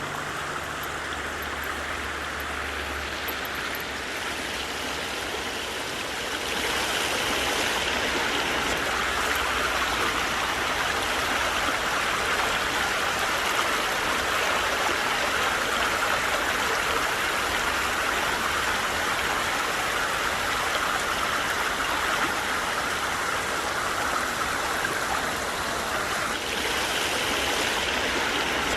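Rushing water of a stream or river, a steady hiss that gets louder about six seconds in.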